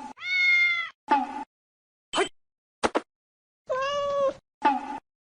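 A cat meowing: two drawn-out meows, one near the start and one about four seconds in, with a few short clipped sounds between them that cut off abruptly.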